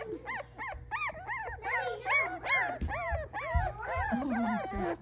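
A litter of young puppies whining and yipping: short, high cries that rise and fall, about three a second, several voices overlapping.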